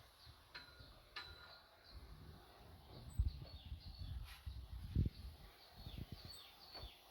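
Small birds chirping, a steady run of short high calls that sweep downward in pitch, with irregular low rumbles and thumps from wind or handling on the microphone, loudest about three and five seconds in.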